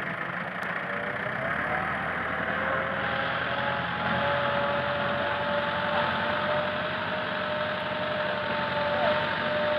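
Massey Ferguson tractor's diesel engine running hard as the tractor, bogged in deep mud, tries to pull itself free. A steady whine comes in about a second and a half in, rises a little, then holds.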